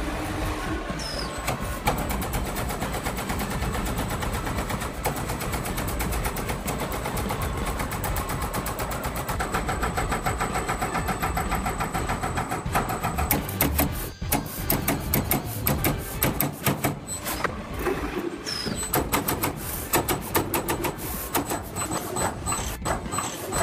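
Sheet-metal working machinery running: a steady mechanical noise with rapid, regular clicking, turning into louder, uneven pulsing in the second half with a brief drop about fourteen seconds in.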